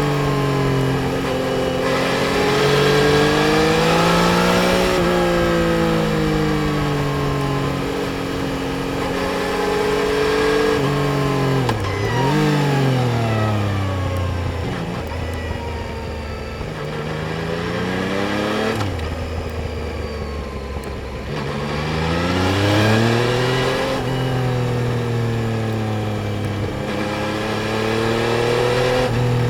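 Yamaha Tracer 900 GT's 847 cc inline three-cylinder engine under way, its pitch rising and falling as the rider opens and closes the throttle. The revs drop sharply about twelve seconds in and again a little past halfway, then climb as it pulls away.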